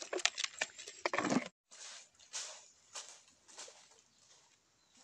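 Live fish and crabs knocking about in a plastic bucket, a quick run of sharp clicks and slaps. Then footsteps on dry leaf litter, about one step every 0.6 s, fading as the walker moves away.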